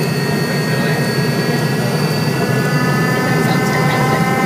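Hawker 400's twin rear-mounted turbofan jet engines running up for takeoff, heard inside the cabin: a steady dense rumble with several high whining tones that edge slowly upward in pitch as the sound grows a little louder.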